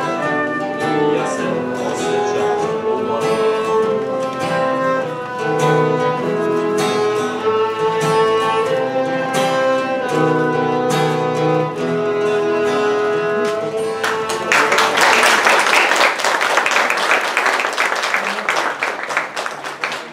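Live trio of violin, flute and acoustic guitar playing a melody; the piece ends about fourteen seconds in and audience applause follows, fading out.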